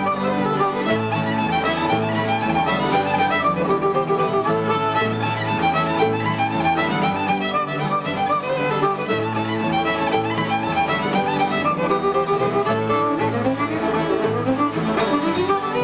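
Fiddle playing a lively tune in quick runs of notes, with a steady low accompaniment pulsing beneath.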